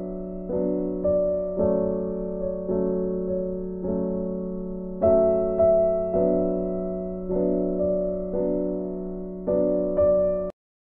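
Background piano music, notes struck about twice a second and fading between strikes, cutting off suddenly near the end.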